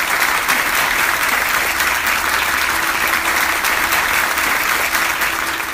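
Künefe sizzling and crackling in a hot buttered pan over the fire, a dense, steady sizzle that starts suddenly and fades near the end.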